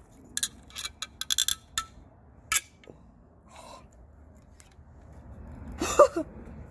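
A quick run of sharp clicks and knocks, about eight in the first three seconds, from the hard plastic and metal parts of a printer being struck and broken apart. About six seconds in, a short wordless vocal cry.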